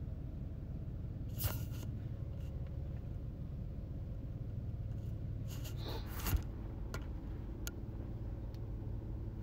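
A steady low background hum, with a few faint clicks; the loudest comes about six seconds in.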